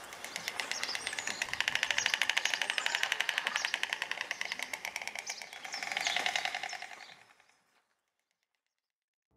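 White stork clattering its bill: a fast, dry wooden rattle of about a dozen claps a second that swells and eases, then dies away about eight seconds in.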